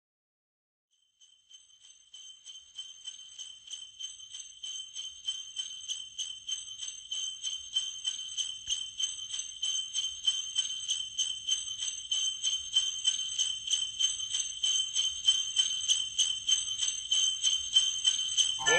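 Sleigh bells jingling in a steady rhythm, about four shakes a second, fading in slowly from silence.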